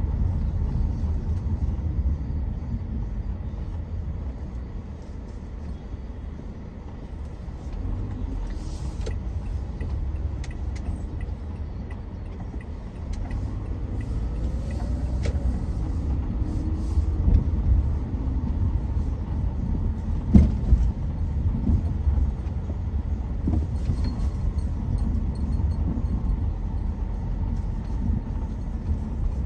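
A car driving, with a steady low rumble of road and engine noise and one sharp knock about twenty seconds in.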